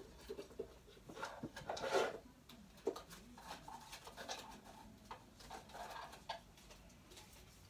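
Someone rummaging through belongings on a shelf: irregular clicks, knocks and rustling as objects are moved about, loudest about two seconds in.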